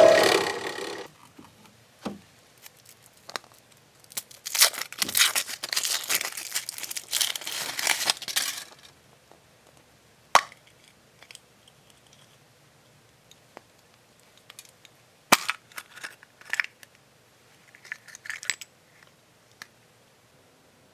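Packaging crinkling and tearing for about five seconds, then scattered sharp clicks and taps with a few short rustles.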